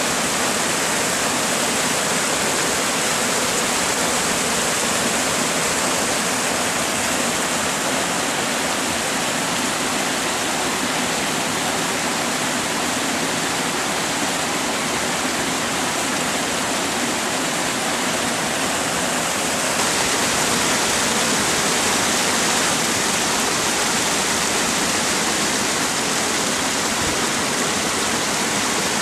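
Floodwater rushing in a flooded creek, a steady loud rush of water that shifts and grows a little louder about two-thirds of the way through.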